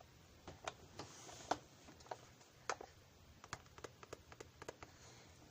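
A run of light, irregular clicks and taps, about a dozen in a few seconds, the sharpest about one and a half seconds in.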